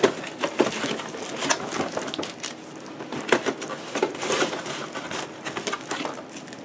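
Cardboard box and plastic packaging handled and pulled open by hand: irregular rustling, crinkling and small clicks and knocks.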